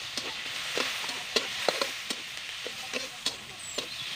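Metal spatula scraping and clinking against a steel wok as it stirs food frying in oil, over a steady sizzle.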